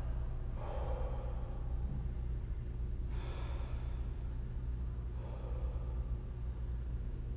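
A man breathing under the strain of holding a long plank: three slow breaths about two and a half seconds apart, over a steady low hum.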